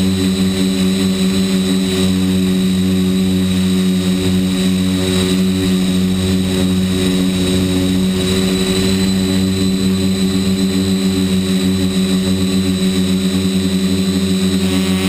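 Electric motors and propellers of an RC quadcopter, heard from the GoPro mounted on it, running steadily in a hover as a loud, even hum with a thin high whine above it.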